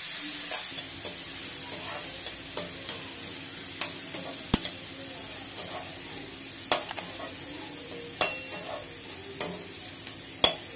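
Chopped onions sizzling in hot oil in a steel kadai, sautéed until translucent. A steel slotted ladle stirs them, scraping and clicking sharply against the pan about once a second.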